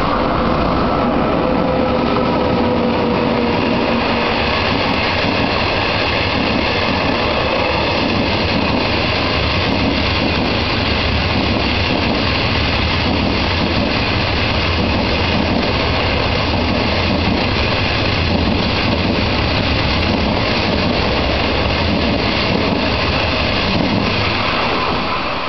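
Intercity passenger train hauled by an SS8 electric locomotive, its 25T coaches rolling past on the rails with a steady loud rumble. A falling whine sounds in the first few seconds, and the noise drops away near the end as the train clears.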